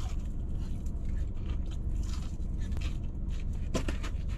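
Steady low rumble inside a car's cabin, with faint scrapes and clicks as food is picked out of a takeout container and eaten. There is a sharper click near the end.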